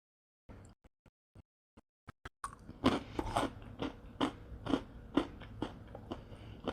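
A person chewing crunchy pretzels with cheese, close to the microphone. A few faint clicks come first, then from about halfway through there is steady crunching, roughly two bites a second.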